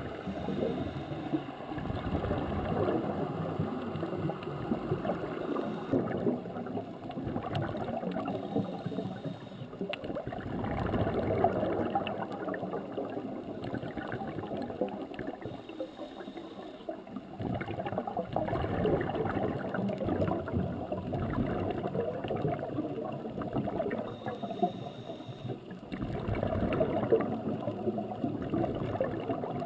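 Scuba regulator exhaust bubbles gurgling, heard underwater, in rounds of several seconds with short quieter gaps between them, following a diver's breathing.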